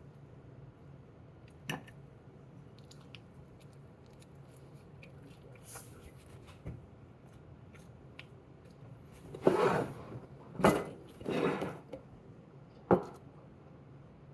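A person eating at the table: a few scattered faint clicks, then four short louder noises in the last third, likely utensil and mouth sounds.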